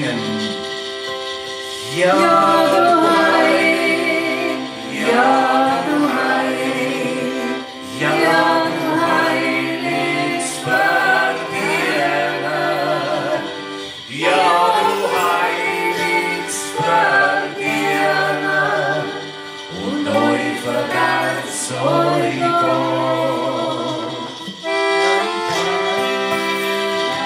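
Live band music: a wavering melody line in phrases of two or three seconds over steadily held chords.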